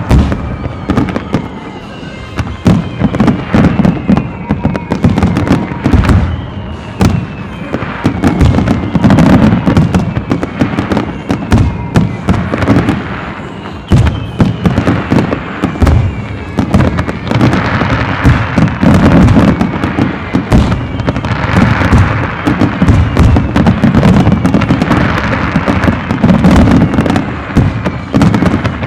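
Aerial fireworks barrage: a continuous rapid string of bangs, deep booms and crackling bursts, densely overlapping.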